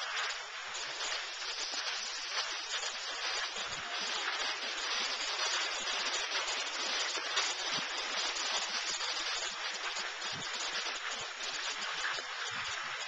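Steady hiss of a rider sliding down a ski run, snow scraping under the board or skis, on soft, slow spring snow.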